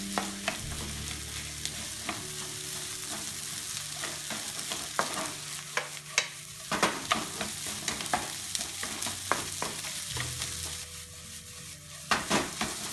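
Fried rice with egg and onion sizzling in an oiled nonstick wok while a wooden spatula stirs and scrapes it against the pan, a steady frying hiss under sharp clacks of the spatula. The clacks come thicker and louder about halfway through and again near the end.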